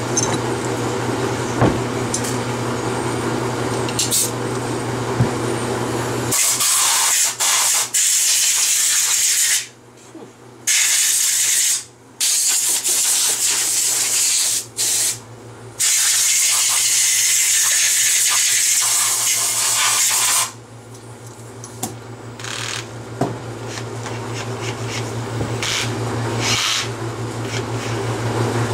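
Compressed air hissing loudly from an air blow gun in several long bursts with short breaks, starting about six seconds in and stopping about twenty seconds in, as a motorcycle cylinder jug is blown off after cleaning. A steady background hum runs underneath.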